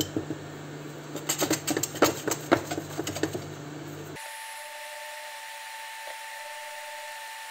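Silicone spatula scraping and pushing dry ground spices around a nonstick frying pan, a quick run of scrapes and light taps. A little after the scraping stops, the sound changes abruptly to a steady, high-pitched whine.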